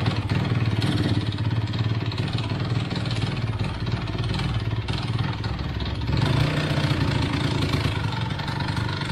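Honda MBX 125's two-stroke single-cylinder engine idling as it warms up, the revs rising slightly about six seconds in.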